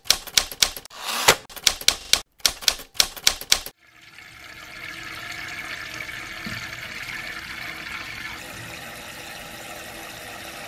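Rapid, irregular typewriter key clicks for about the first three and a half seconds, then tap water running steadily into a stainless-steel kettle as it fills.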